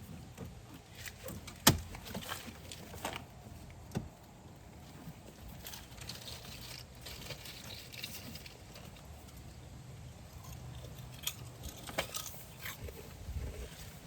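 Scattered plastic clicks and knocks of a car's dashboard trim panel being pried loose and handled, the loudest a sharp knock a little under two seconds in.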